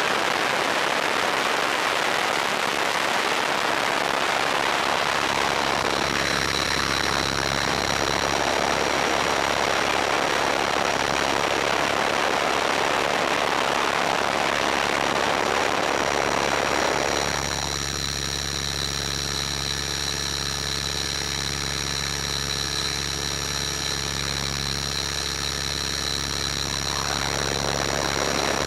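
Align T-Rex 500 electric RC helicopter in flight, picked up by its onboard camera: a steady rushing hiss with the motor and rotor running as steady tones beneath. About 17 seconds in the hiss drops away, leaving a high whine and a low hum clearer.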